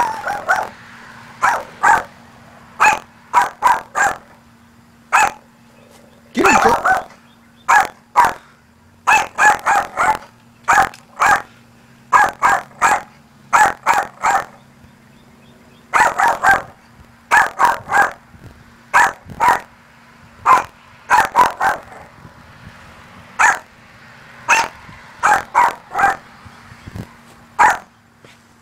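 Small Maltese dog barking repeatedly at her own reflection in a glass door, taking it for another dog: short, sharp barks in quick runs of two to five with brief pauses between.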